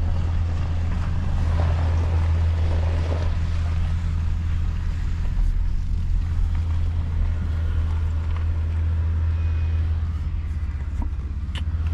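Steady low drone of a car's engine and tyres heard from inside the cabin while it drives slowly over a rough, bumpy dirt track, with some extra rumbling road noise in the first few seconds.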